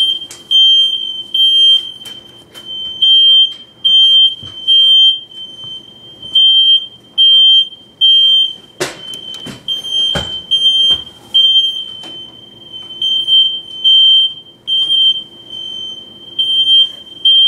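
Several hardwired, interconnected smoke detectors going off together: a loud, high-pitched beep repeated over and over. Two sharp knocks come a little past the middle.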